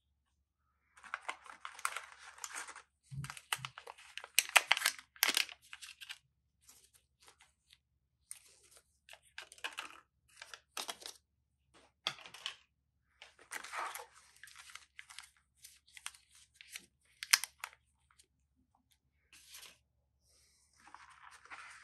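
Gloved hands handling smartphone packaging: irregular rustling and crinkling of plastic wrap and cardboard inserts, with pauses and a few sharp clicks, as the charging cable and accessories are taken out.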